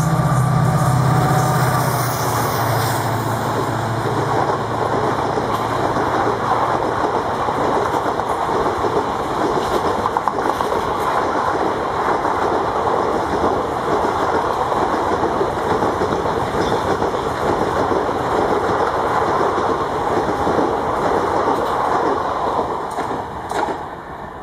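EMD WDP-4 diesel-electric locomotive passing at speed. Its turbocharged two-stroke V16 engine runs hard with a jet-like sound for the first few seconds. The passenger coaches then roll past with steady wheel-on-rail clatter, which fades near the end as the last coach draws away.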